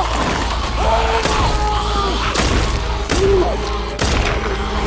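A film action-scene soundtrack: tense music with pitched, bending tones, cut by several heavy thuds and sharp hits of a close struggle.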